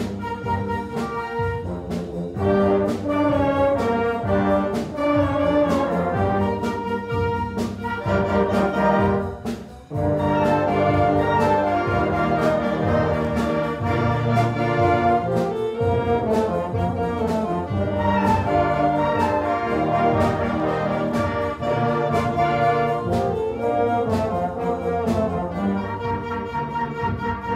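Concert band of brass and woodwinds playing a piece together, with a brief drop in sound about ten seconds in before the full band comes back in.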